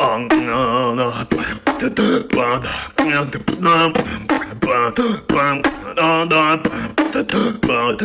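A man beatboxing: rhythmic mouth-drum sounds mixed with sung, wavering vocal tones in short pulses.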